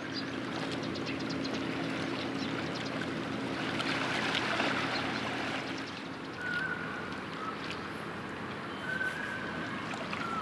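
Harbour waterside ambience: water lapping and trickling over a steady low engine hum from a boat, which fades out about six seconds in. A few short, high whistling tones follow near the end.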